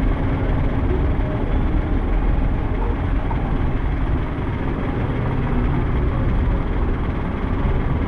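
Slow street traffic: vehicle engines running with a steady low rumble and road noise.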